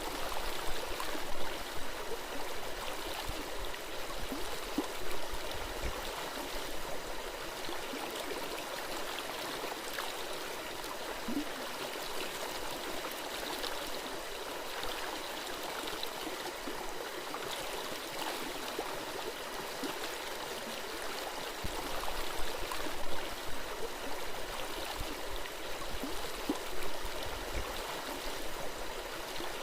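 A forest stream flowing with a steady gurgling rush of water. A few low thumps stand out above it in the first few seconds and again in the later part.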